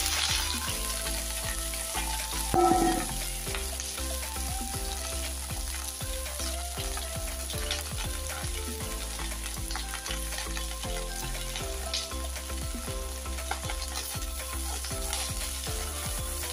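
Sliced okra sizzling in hot oil in a stainless steel kadai, with a surge of sizzle as it is tipped in at the start, then a spatula scraping and stirring it against the pan. A brief louder knock about three seconds in.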